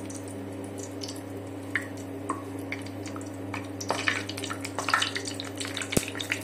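Bay leaves and a piece of cinnamon crackling in hot oil in an aluminium kadhai, with scattered pops. They grow busier about four seconds in, when a steel spoon stirs the spices in the pan.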